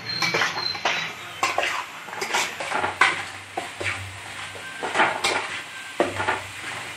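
Metal spatula scraping and knocking against a metal pan in irregular strokes, stirring thick coconut-jaggery halwa as it cooks down and thickens. A few strokes stand out louder than the rest.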